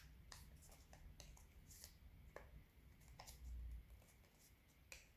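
Faint, irregular crinkles and ticks of origami paper being folded and creased by hand, over a low steady hum, with a soft low bump about three and a half seconds in.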